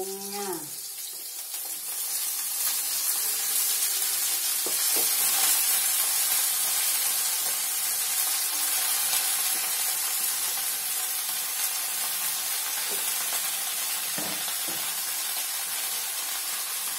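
Fresh water spinach (kangkung) dropped by the handful into hot oil in a wok, sizzling. The sizzle swells about two seconds in as the leaves go in, then holds steady, with a few faint knocks.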